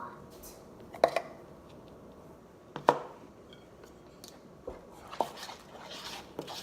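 Knocks and clicks of things handled on a table while slime is mixed: two sharper knocks about one and three seconds in, then a run of lighter taps near the end.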